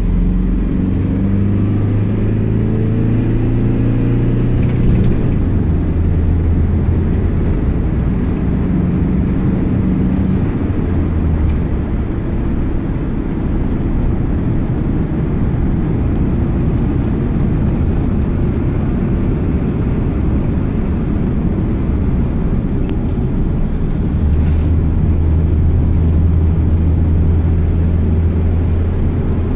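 Iveco Daily minibus's 3.0-litre four-cylinder turbo-diesel heard from inside the cabin under way, with its note climbing during the first few seconds. Through the middle a dense rumble of engine and road noise takes over, and near the end the engine settles into a steady low hum.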